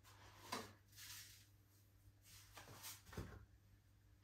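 Near silence with faint handling sounds: salt shaken from a cardboard carton into a food processor's mixing bowl, one brief rustle about half a second in and another around three seconds in.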